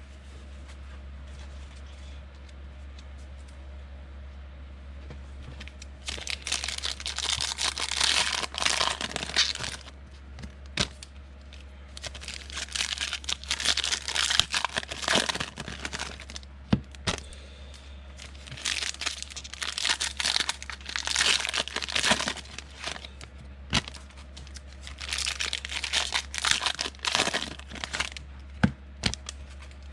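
Foil trading-card pack wrappers being torn open and crinkled by hand, in repeated bursts of tearing and crinkling with a few sharp clicks, starting about six seconds in, over a steady low hum.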